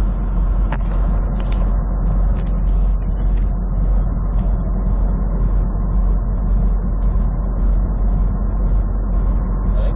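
Steady low drone of a big truck's engine and road noise, heard from inside the cab while driving, with faint light ticks about two or three times a second.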